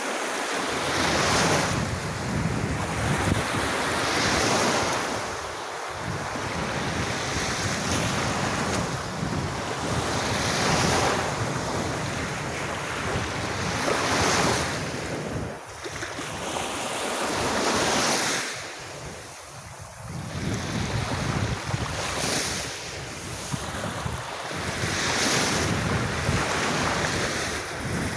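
Sea waves washing onto a sandy beach, the surf swelling and easing every few seconds.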